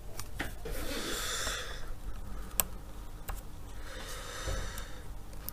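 Small handling noises: the tips of small screwdrivers prying and clicking against the plastic screw covers and bezel of a laptop's display lid, with a sharp click about two and a half seconds in. Two soft hisses of about a second each come in between.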